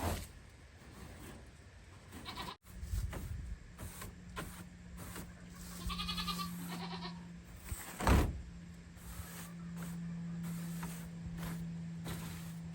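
A goat bleating, one wavering call about six seconds in, after a short one earlier. A steady low hum starts a few seconds in, and a sharp knock about eight seconds in is the loudest sound.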